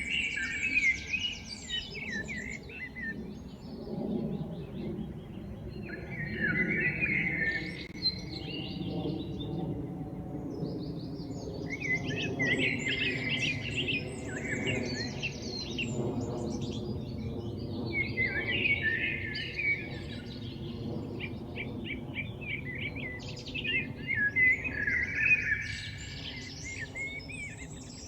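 Several small birds chirping and twittering in bursts, about five clusters of quick chirps a few seconds apart, over a low steady background rumble.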